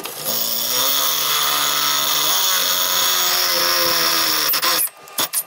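Cordless drill with an 11/16-inch bit boring out a pilot hole through a metal bracket, its motor running steadily under load for nearly five seconds before it stops. A few short blips of the drill follow near the end.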